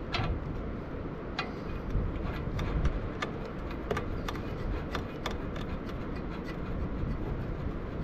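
Irregular light clicks and taps, roughly one or two a second, over a steady low rumble.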